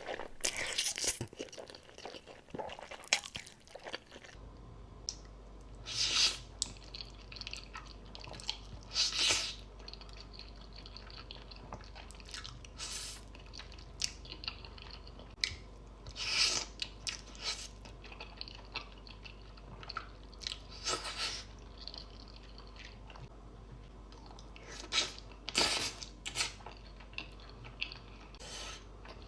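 Close-miked mukbang eating sounds: a person chewing Buldak spicy instant noodles, with irregular wet smacks and crunches. A low steady hum sits under the chewing from about four seconds in.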